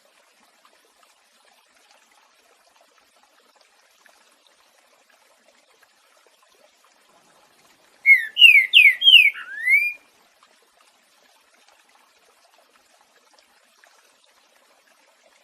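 A green-winged saltator (trinca-ferro) sings one loud phrase of the 'boiadeiro' song type about eight seconds in: about six quick, clear whistled slurs lasting two seconds. Around it there is a faint, steady trickle of water.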